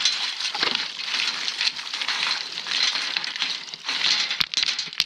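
A shovel scoop digging and scraping into wet gravel and rock, stones crunching and clinking, over a steady hiss of rain, with a couple of sharp clicks near the end.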